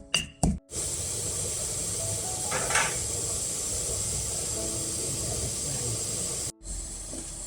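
Two last strikes of a pestle pounding in a mortar, then a steady sizzling hiss of food cooking over heat, with a brief louder flare near the middle.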